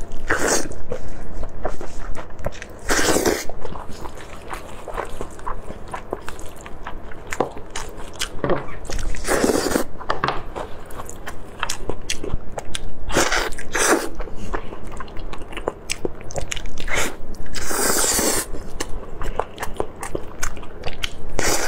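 Close-miked eating of saucy glazed pork: steady wet chewing and smacking clicks, with about five louder bites spread through.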